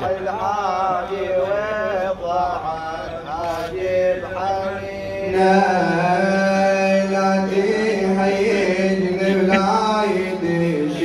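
Arabic Shia lament (nawha) chanted without instruments. A single male reciter's wavering sung line comes first; about five seconds in, a crowd of mourners takes up the refrain together, fuller and louder.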